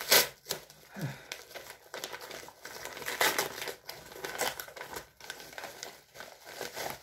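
Paper mailing envelope being worked open by hand, crinkling and rustling in an irregular run of crackles, loudest right at the start and again about three seconds in.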